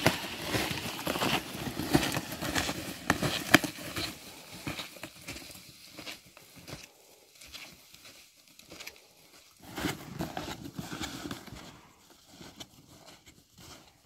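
Snowshoe footsteps crunching in deep snow, with a gear-loaded tarp dragged over the snow on ropes. The crunching is loudest in the first few seconds and grows fainter and sparser after about six seconds, with a brief louder stretch around ten seconds.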